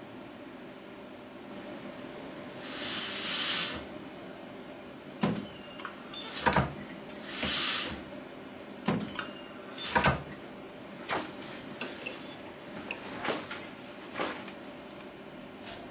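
Air-actuated weld head of a capacitive discharge micro spot welder at work: two short hisses of compressed air, about three and seven seconds in, with a series of sharp clicks and clunks between and after them.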